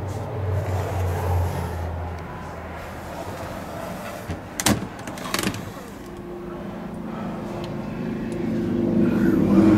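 Two sharp clicks about halfway through as a wooden, glass-fronted overhead cabinet door is unlatched and lifted open, over a low hum.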